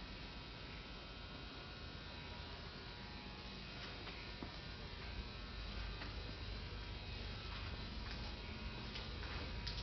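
Steady low machinery hum with a buzz, made up of several steady tones, and a few faint clicks in the second half.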